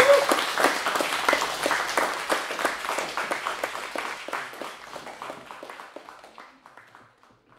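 Audience applauding at the close of a talk; the clapping thins out and dies away toward the end.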